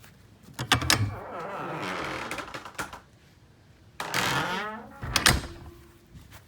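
A door being opened and shut: clicks and knocks, a rushing scrape, and a hard thud about five seconds in.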